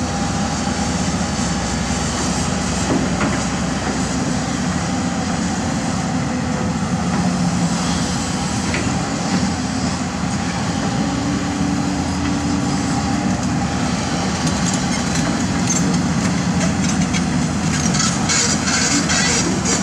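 Heavy diesel earthmoving machinery running steadily under load, with a denser metallic clatter near the end.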